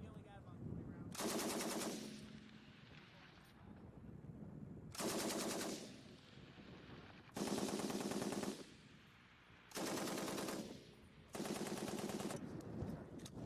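M60 7.62mm machine gun firing five short bursts of automatic fire, each about a second long, with pauses of a second or two between them.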